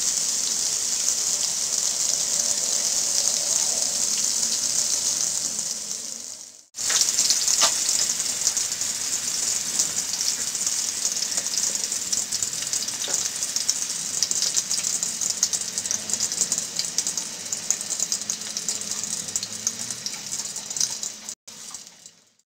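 Batter-coated fish fillet pieces deep-frying in hot oil: a steady crackling sizzle. It fades out about six seconds in and cuts straight back in, then drops away near the end.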